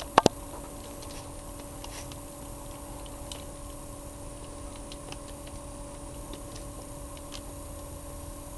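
Two sharp clicks just after the start, then a steady electrical hum with faint scattered ticks.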